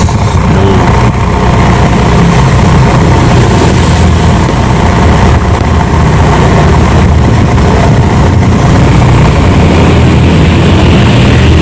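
Hyundai Atoz exhaust idling steadily, heard right at the tailpipe as a loud, even low rumble.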